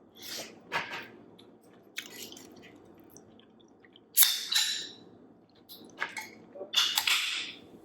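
A juice bottle being worked open and handled: a few short hissy, scraping bursts, the loudest about four and seven seconds in.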